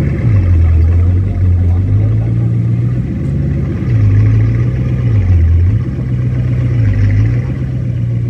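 A vehicle engine running steadily, its pitch stepping up and down every second or two as a Bugatti Chiron is loaded onto a flatbed tow truck.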